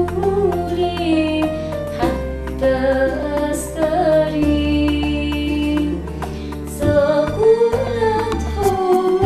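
A woman singing an Arabic Christian hymn, holding long, wavering notes over an instrumental backing with sustained bass notes.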